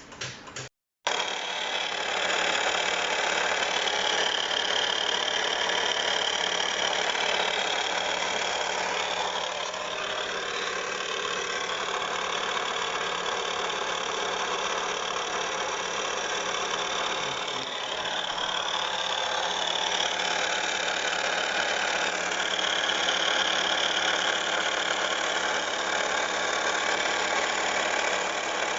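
Fiat 500's engine running steadily, starting about a second in. A high whine swells and fades twice over the even engine noise.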